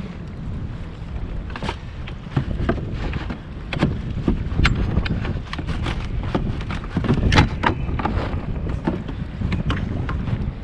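Wind buffeting the microphone, with irregular sharp clicks and knocks from a fishing rod, reel and kayak gear being handled while a hooked fish is reeled in.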